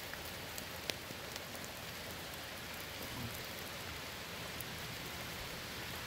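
Steady rain falling, with a few sharper drops tapping, the clearest about a second in.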